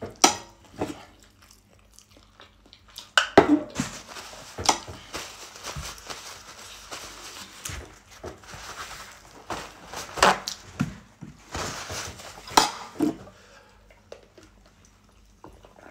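Table-side eating sounds: a fork clinking and scraping on a plate, chewing, and things being picked up and set down. There are scattered sharp knocks and clicks, the loudest a few seconds in and again around ten and twelve seconds in.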